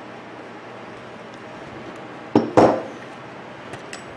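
Two sharp clinks about a quarter second apart, a little past the middle, the second ringing briefly, from small hard parts being handled on a workbench; otherwise quiet room tone with a couple of faint ticks near the end.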